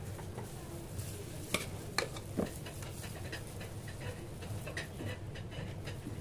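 Metal palette knife working whipped cream over a sponge cake layer, with scraping and light ticking over a steady low hum. Three sharp clicks come between about one and a half and two and a half seconds in.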